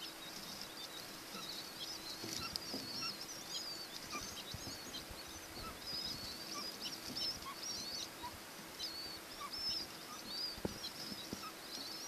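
Chinese painted quail (button quail) chicks peeping almost without pause, a stream of short, thin, high-pitched peeps several a second, with a few soft rustles in the straw.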